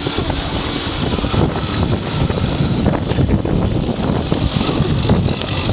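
Wind buffeting the microphone on a moving TVS Luna moped, over the running of its small two-stroke engine, steady throughout.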